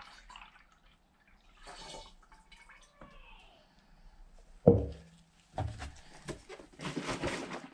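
Dark liquid fertilizer poured from a plastic measuring cup into a half-filled plastic pump sprayer tank, splashing in bursts toward the end. A loud single bump comes just before the pour.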